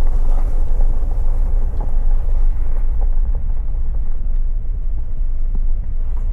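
Vehicle driving along a dirt trail: a steady, loud low rumble of engine and tyres.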